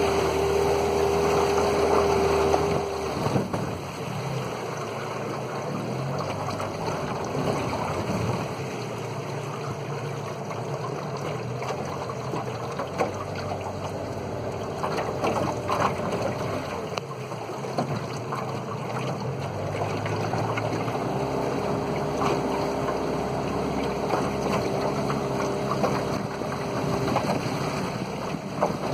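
Outboard motor of a small aluminium boat running steadily under way, louder for the first few seconds, with water rushing along the hull.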